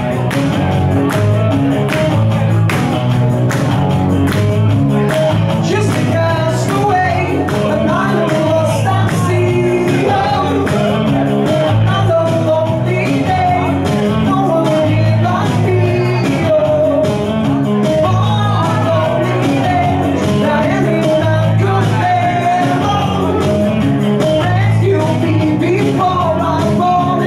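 Live rock music from an electric guitar and an electric bass, the bass notes pulsing steadily underneath, with a man singing into a microphone over it from about six seconds in.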